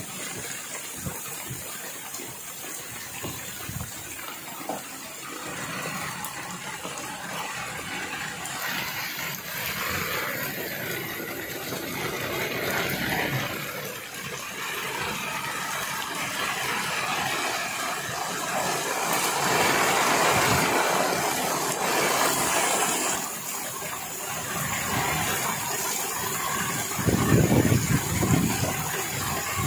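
Rain squall at sea: a steady rush of strong wind and rain over rough water, gusting harder about two-thirds of the way through and again near the end.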